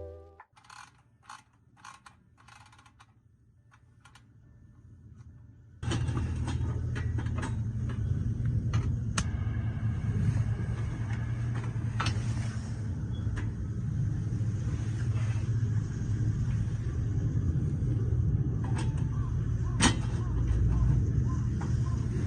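A vehicle running, a steady low rumble with scattered creaks and knocks, cutting in suddenly about six seconds in. Before that there are a few seconds of near quiet with faint clicks.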